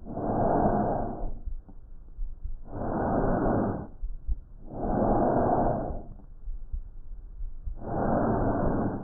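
Bronchovesicular breath sounds heard through a stethoscope: four soft rushing breaths of about a second each, the in- and out-breaths about equally long, muffled with nothing above about 2 kHz.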